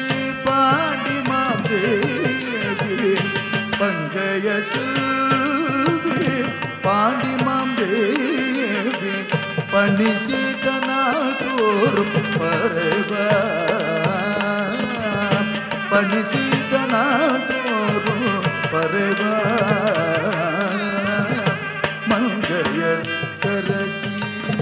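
Carnatic music accompanying Bharatanatyam dance: a voice and melody lines gliding over a steady drone, with drum strokes and the jingle of the dancer's brass ankle bells.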